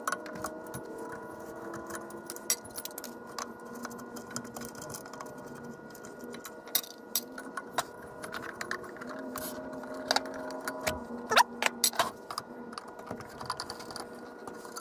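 Light metallic clicks, clinks and scrapes as a screwdriver works the wire terminals and screws on vintage Autolite electric horns and their steel dome covers are handled. A cluster of louder clinks comes about three-quarters of the way through, over a faint steady hum.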